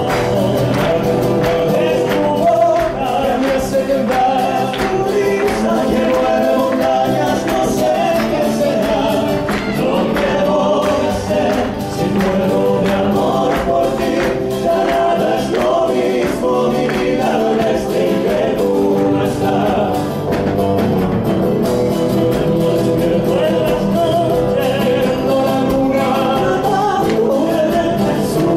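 Live Argentine folk music: a male vocal group singing in harmony over acoustic guitars and steady hand percussion.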